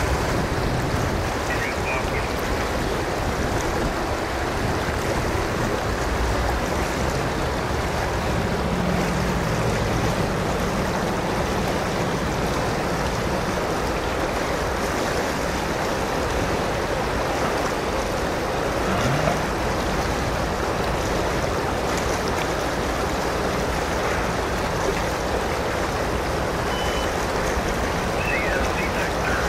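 Steady rush of flowing river water, with the low rumble of a Canadian Pacific GE ES44AC diesel locomotive working slowly across a steel trestle bridge underneath it.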